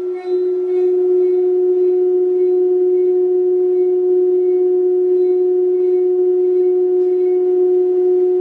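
A single steady pure tone held at one pitch without a break, with a fainter tone an octave above it.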